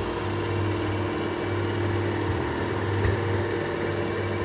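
Yilmaz FR 226 copy router's electric motor running steadily with no workpiece, a constant machine hum with a steady whine.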